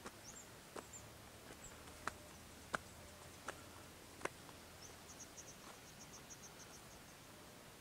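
Faint outdoor ambience: small birds giving short high chirps, a quick high trill of about a dozen notes between about five and seven seconds in, and a few soft clicks less than a second apart.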